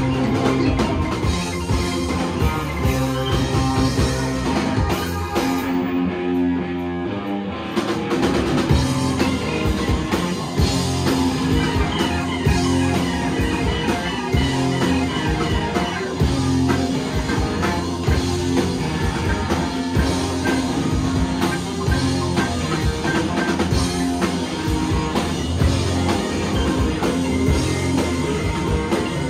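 Live rock and roll band playing loudly: electric guitar and drum kit driving a steady beat. About six seconds in, the sound thins out for roughly two seconds before the full band comes back in.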